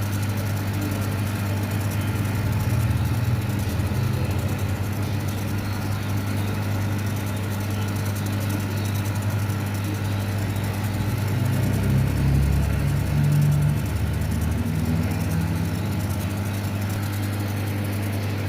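Steady hum of running electric machinery, a deep drone with a faint higher whir over it, swelling briefly into a lower rumble about twelve seconds in.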